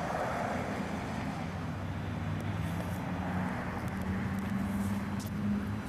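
Road traffic passing: a steady hiss of car tyres on a wet road with a low engine hum.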